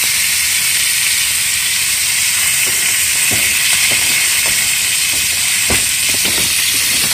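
Fish frying in oil in a small pan on a portable gas stove: a steady, loud sizzle, with a few short knocks and scrapes of a spoon in the pan about three to six seconds in.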